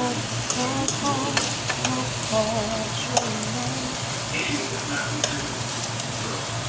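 Zucchini frying in oil in a skillet: a steady sizzle with scattered sharp pops and clicks.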